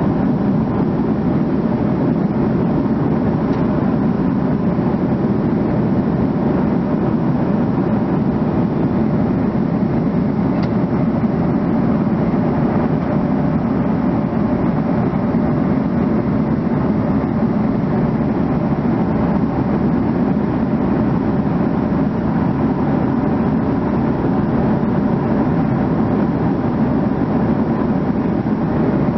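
Cabin noise of a jet airliner at cruise altitude: the steady rush and rumble of the engines and the airflow over the fuselage, with a faint steady hum.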